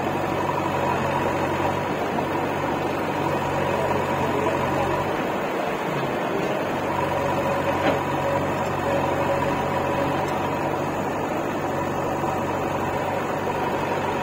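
Diesel engines of a Mahindra tractor and a JCB backhoe loader running steadily at idle. The low engine note dips for a moment about five seconds in.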